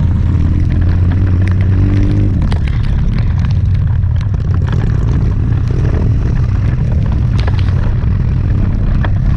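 Off-road trail motorbike riding, its engine rumble mixed with heavy wind buffeting on the microphone and scattered knocks.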